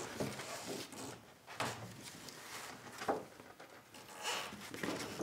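A sheet of printing paper being peeled off an inked woodcut block and lifted away, crackling and rustling in several short swells as it comes free.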